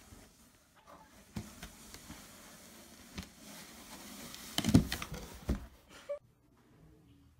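Cardboard box knocking and scraping as a cat scrambles on it and pushes into it, with a cluster of loud knocks a little before the five-second mark.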